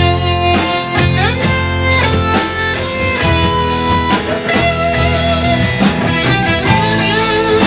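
Instrumental break of a rock song: a guitar line with sliding, bending notes over bass and drums.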